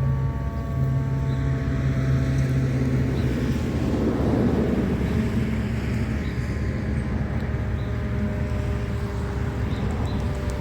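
ACA Hurricane MKII siren winding down: its tone sinks slightly in pitch and fades out, along with a low hum, over the first few seconds. A rush of air and wind noise swells after it, and a faint tone returns near the end.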